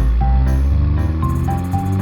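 Upbeat children's background music: a simple melody of short, evenly spaced notes over sustained bass notes.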